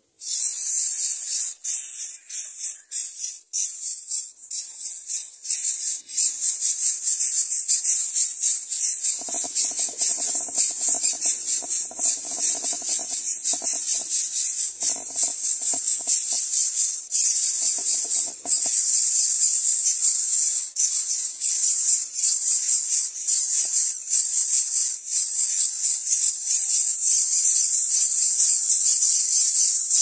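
Greater coucal nestlings giving harsh, rasping, hiss-like begging calls in a rapid pulsing stream. A lower, rougher sound is mixed in for several seconds midway.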